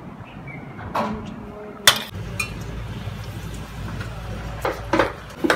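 Kitchen clatter of dishes and utensils: scattered knocks and clinks, with one sharp clink about two seconds in and a quick run of knocks near the end, over a steady low hum.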